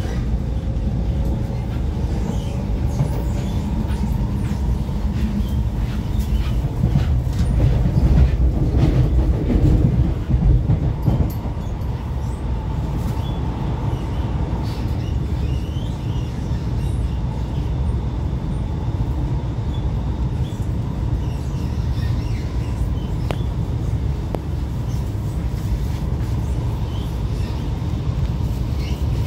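Alstom Movia R151 metro train running at speed, heard from inside the car: a steady low rumble of wheels on rail, with the traction motor whine rising in pitch at the start. The noise swells for a few seconds about a third of the way in, as a train passes on the opposite track.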